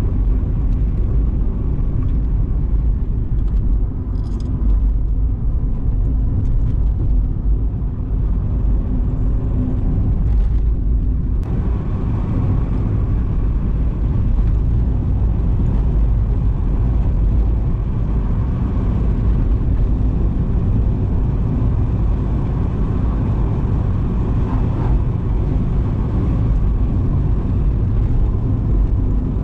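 Steady, loud low rumble of wind buffeting the microphone and tyres rolling over the trail while a mountain bike is ridden.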